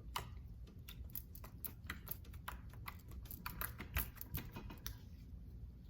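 Fluffy slime being squished and pulled by hand, giving a run of small irregular sticky clicks and pops that stop about five seconds in.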